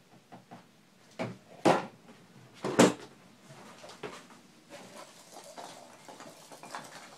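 Cardboard boxes knocking and scraping as an inner box packed with foam packing peanuts is worked up out of a shipping box: three sharp thumps in the first three seconds, the last the loudest, then softer rustling and scraping of cardboard.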